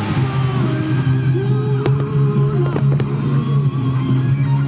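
Starmine fireworks shells launching and bursting, a few sharp bangs about midway, over loud music with a held bass note.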